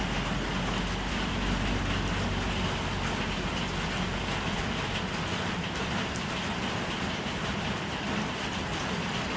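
Water running or spraying in a steady rush, with a low hum underneath that drops away about halfway through.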